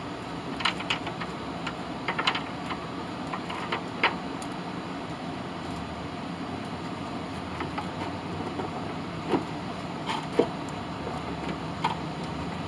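Scattered light clicks and taps of a bolt and retainer being handled and fitted into a lawn mower, bunched in the first few seconds and again near the end, over a steady background hum.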